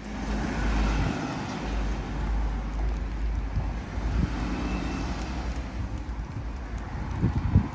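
Outdoor road ambience: a steady wash of traffic noise with a low rumble, and wind on the microphone. A few short low bumps near the end.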